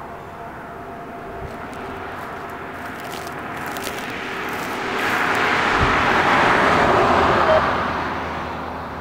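A road vehicle passing on the highway beside the tracks: tyre and engine noise swells to a peak about six to seven seconds in, then fades away.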